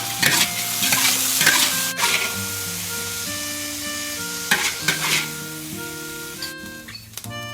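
Food sizzling in a hot pan while it is stirred and tossed, with a few sharper scraping strokes, over light background music. The sizzling drops away near the end, leaving only the music.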